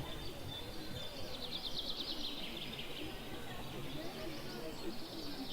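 Wild bird singing a fast trill of rapidly repeated notes that slides slightly downward, starting about a second in and lasting about two seconds, with shorter chirps near the end, over steady outdoor background noise.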